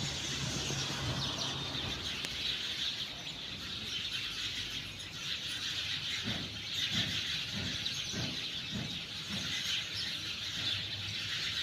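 Cockatiels chirping and chattering continuously, many calls overlapping.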